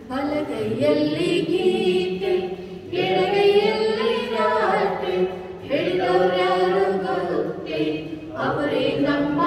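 A small mixed group of voices singing a wishing song together, unaccompanied, into a microphone, in phrases of a few seconds with short breaks for breath.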